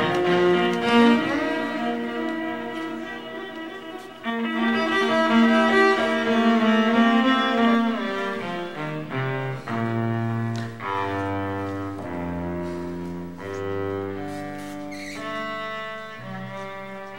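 Music on bowed strings, cello-like, with low held notes stepping from one pitch to the next; a fuller passage gives way after about 8 seconds to slower single sustained notes.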